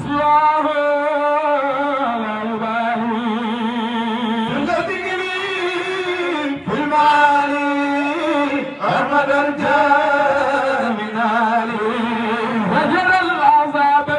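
Men's voices chanting a Sufi zikr into microphones: a continuous devotional melody with long held notes and a wavering, ornamented pitch.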